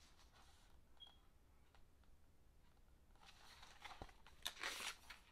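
Near silence, then from about three seconds in soft paper rustling and a light tap as a hardcover picture book is handled.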